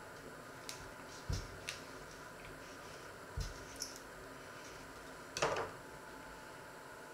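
Paring knife working on a stone fruit over a wooden cutting board: a few light knocks and clicks of the blade against the board, then about five and a half seconds in a louder clatter as the knife is set down on the board. A faint steady hum lies underneath.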